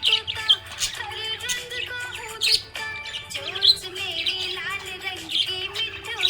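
Budgie chirping and warbling: a busy run of short, high chirps and trills.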